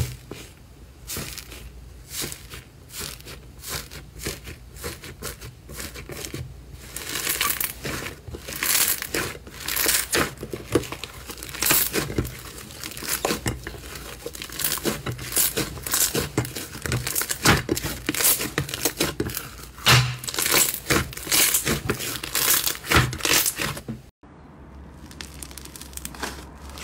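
Red iceberg slime, its dried surface crust crackling and crinkling as fingers press into it and tear it apart, in quick irregular crackles that grow denser after several seconds. The crackling stops abruptly a couple of seconds before the end, and quieter squishing of a soft fluffy slime follows.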